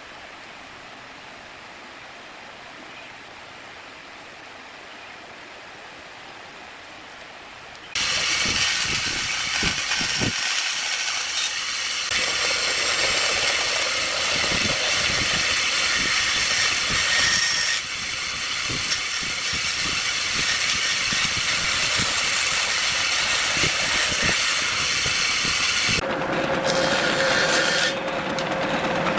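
A faint steady hiss, then about eight seconds in a loud power tool working wood starts abruptly, with many small clicks and knocks, and keeps running.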